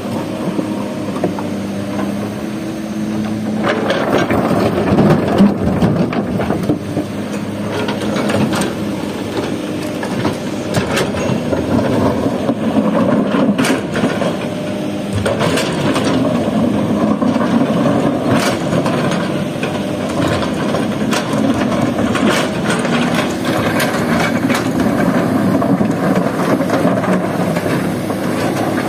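Kobelco hydraulic excavator running steadily under load while its steel bucket scrapes and scoops through a pile of broken rock, the rocks clattering and knocking against the bucket and each other. The clatter begins about four seconds in and comes in bursts.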